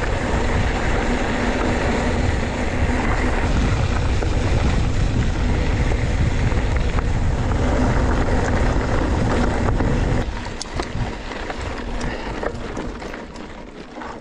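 Wind rushing on the microphone and tyre noise from a mountain bike rolling along a gravel track. About ten seconds in it eases off to quieter rolling with scattered clicks and rattles.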